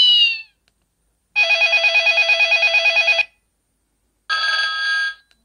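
Samsung X427 mobile phone playing its preloaded ringtones one after another: a short gliding electronic tone, then about two seconds of a warbling ring pulsing about eight times a second, then a brief steady electronic chord.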